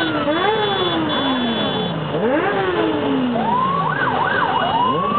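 Many motorcycle engines being revved at once in a large crowd of bikes, with overlapping blips that rise sharply in pitch and then die away slowly. A quick double rev climbs higher about four seconds in.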